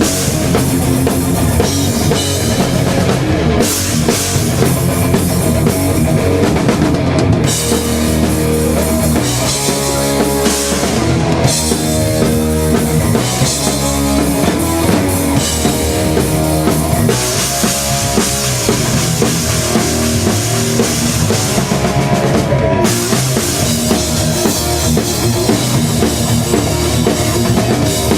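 Heavy metal band playing: a drum kit with bass drum and cymbals pounding steadily under electric guitars and bass.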